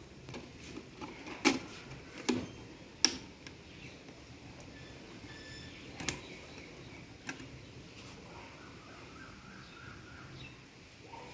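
A handful of sharp clicks and knocks from hard objects being handled: three close together a second or two in, then two more, spaced apart, in the second half.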